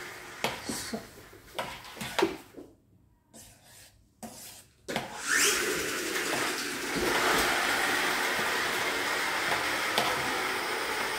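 A spoon stirring and scraping in a metal saucepan, with short clicks. About five seconds in, a steady rushing noise starts and carries on to the end, getting louder about two seconds later.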